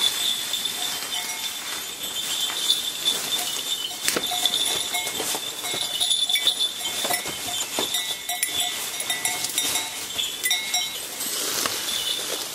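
Many goat bells clanking and ringing together in a loose, overlapping jangle, carried by a group of people on foot. The bells ring on with irregular knocks as they swing.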